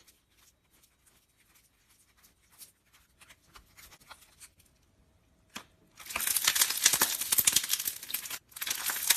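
Slime being squeezed and stretched by hand: faint scattered sticky clicks, then from about six seconds in a loud, dense crackling with a short break near the end.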